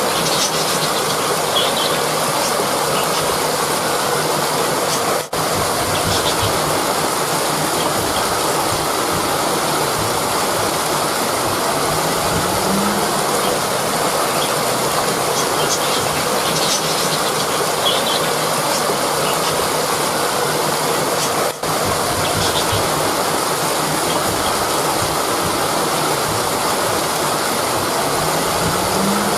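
Rushing river water, a steady loud flowing roar, cutting out for an instant twice.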